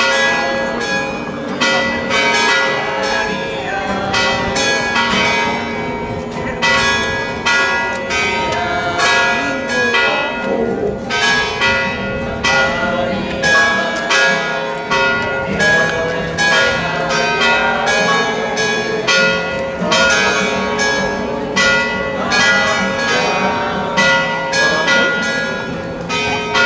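Church bells ringing a rapid festive peal, many strikes a second overlapping and ringing on, with a crowd talking underneath.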